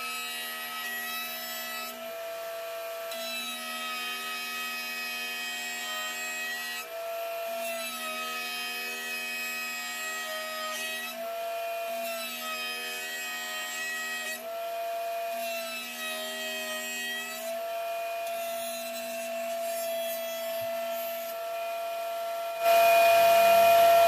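Router table running a flush trim bit while a wood workpiece is fed around it against a template, pattern-routing a curved edge. The motor whines steadily, its pitch sagging briefly now and then as the bit cuts, and it grows louder near the end.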